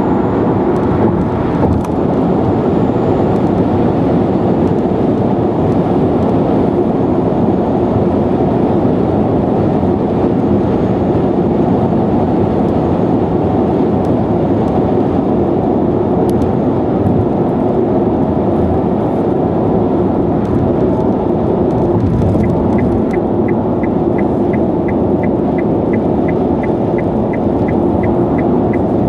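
Steady road and wind noise of a Nissan Leaf electric car cruising at expressway speed, heard from inside the car. About two-thirds of the way through, a light regular ticking, about three a second, starts and keeps going.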